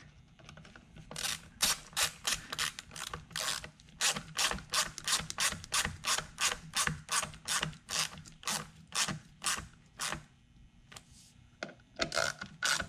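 Hand ratcheting screwdriver clicking as it turns screws, about three clicks a second, with a short pause near the end before the clicking starts again.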